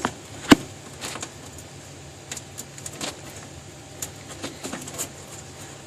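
Handling of speaker wires and connectors: one sharp click about half a second in, then scattered lighter clicks and taps as the wires are reconnected.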